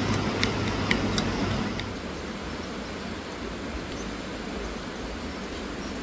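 Steady rushing of a flowing river, with a few sharp clicks in the first two seconds.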